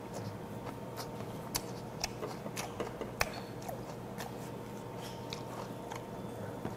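Close-miked chewing of raw icefish (silchi), soft wet mouth clicks and smacks scattered through, over a faint steady hum.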